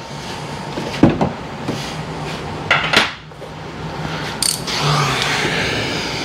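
Hand tools and metal hardware clinking and knocking as a vehicle door's hinge bolts are worked, with a sharp knock about a second in and a few shorter scrapes and clatters after.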